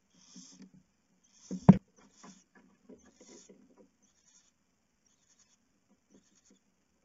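Barn owl hissing in a series of short bursts, with one loud thump about a second and a half in.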